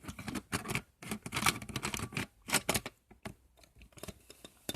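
Irregular clicks and knocks of a hard plastic smoke detector and its sounder base being handled, thinning out after about three seconds.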